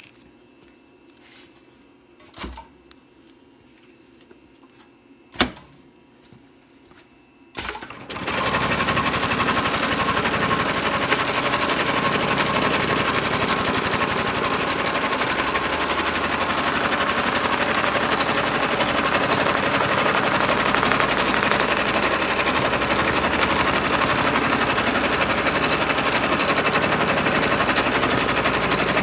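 A few sharp clicks, then about eight seconds in the SEWPRO 2600-3020 programmable heavy-duty sewing machine, a rotary-hook pattern sewer, starts and sews steadily through its programmed cycle with a loud, fast, even rattle.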